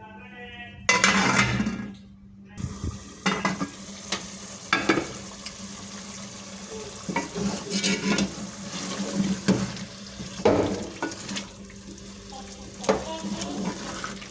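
A spoon scraping and clattering irregularly against a cooking pot as a spinach-and-chicken curry is stirred, over a steady sizzle of frying. A louder burst of sizzling and scraping comes about a second in.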